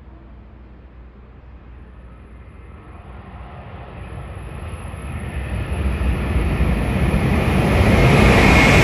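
E7/W7-series Hokuriku Shinkansen train approaching at full speed to pass through a station without stopping. Its rushing noise swells steadily from about three seconds in, growing brighter as the train nears, and is loudest near the end as the nose reaches the platform.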